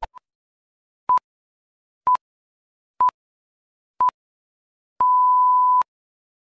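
Film-leader countdown beeps: four short beeps of one steady pitch, one a second, then a final longer beep of almost a second at the same pitch.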